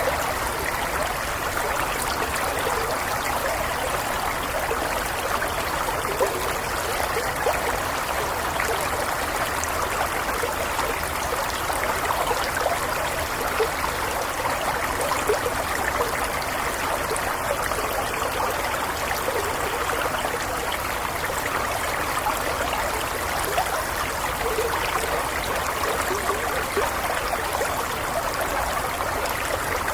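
A small stream flowing steadily over stones, a continuous babble with light trickling and bubbling.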